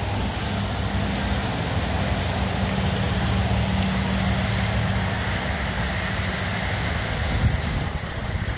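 Torrential rain falling steadily, with a steady low hum underneath that fades out near the end.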